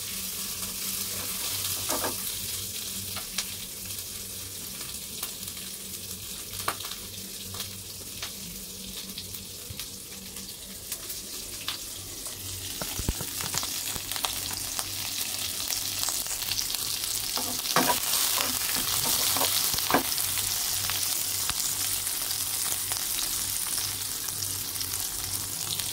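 Sliced onion, garlic, ginger and lemongrass sizzling in hot oil in a wok as they are sautéed, with a wooden spatula stirring and now and then knocking against the pan. The sizzle gets louder about halfway through.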